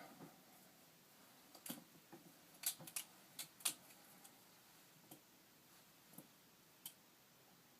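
A balisong (butterfly knife) being flipped: sharp metallic clicks as the handles swing and strike, in a quick cluster in the first few seconds and then a few scattered single clicks.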